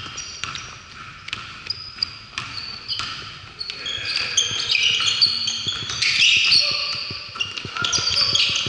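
Basketball play on a hardwood gym floor: a ball bouncing and many short, high sneaker squeaks from players cutting and stopping. The squeaks grow busier and louder about halfway through.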